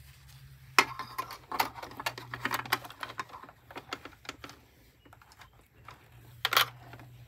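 Irregular clicks, taps and light rustling of hands positioning mesh fabric and plastic sewing clips on a sewing machine's bed, with no stitching. The clicks come thickest in the first few seconds, with a louder cluster near the end.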